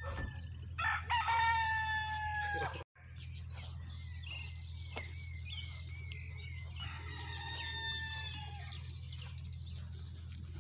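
A rooster crowing twice: a louder crow about a second in and a fainter one about seven seconds in, over a steady low hum.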